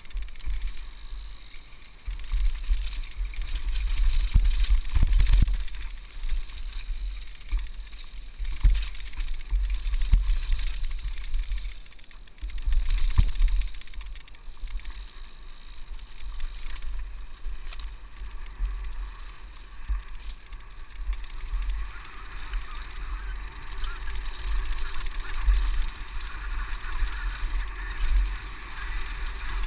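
Wind buffeting a handlebar-mounted camera on a mountain bike riding down a dirt trail, a heavy rumble that surges and fades, with knocks and rattles from the bike going over bumps and tyre noise on the dirt.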